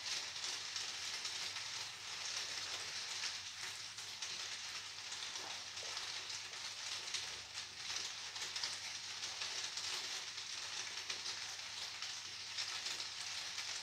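Steady rain: an even hiss of many small drops ticking on a surface.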